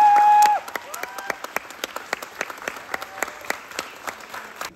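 A small audience clapping, the separate claps clearly heard, with a voice holding a long high cheer in the first half-second and a couple of shorter whoops after it.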